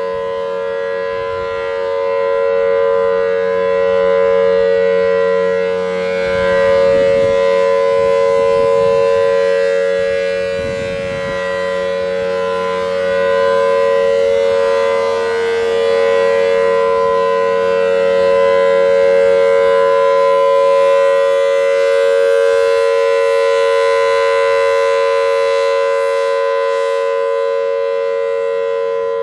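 Federal Signal Thunderbolt 1000T civil defense siren sounding the Full Alert steady tone. Its pitch holds level while the loudness swells and dips slightly.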